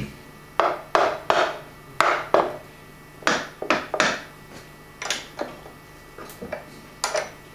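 Wooden mallet knocking on a band-saw-mill wheel mount (iron profile set in a wooden frame) to shift it into alignment: a dozen or so short knocks in uneven groups of two or three.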